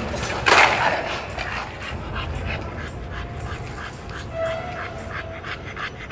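A pit bull–type dog panting quickly and regularly with its mouth open, winded after lunging on its leash, with a thin whine about three to five seconds in. A short loud crackle comes about half a second in.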